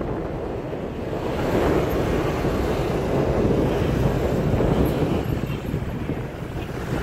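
Steady road traffic noise heard from a moving vehicle, with wind rushing over the microphone.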